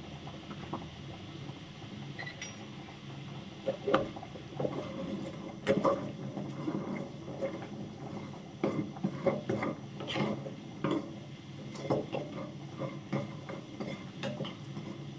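Wooden spatula stirring sugar syrup in a non-stick frying pan, with scattered light scrapes and knocks against the pan starting about four seconds in, as the sugar is stirred until it dissolves.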